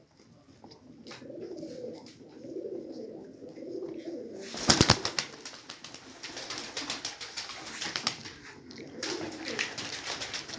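Pigeons cooing in low, rolling phrases. About halfway through comes a sudden loud clatter, followed by a stretch of rapid clicking and rustling, then more cooing near the end.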